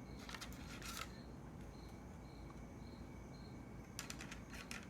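Faint clicks and taps of small plastic repair tools and parts being handled, in two short clusters: one just after the start and one near the end.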